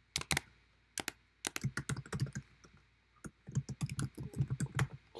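Typing on a computer keyboard: a few single keystrokes in the first second, then a quick run of key clicks, and a longer, denser run from a little past the middle until near the end.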